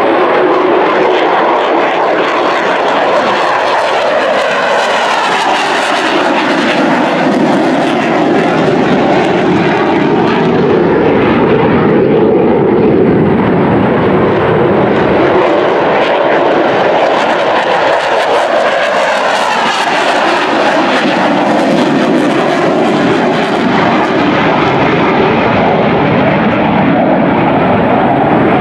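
An F-22 Raptor's twin Pratt & Whitney F119 turbofan engines, loud and continuous as the jet flies low past, with a sweeping, phasing whoosh that shifts as it passes.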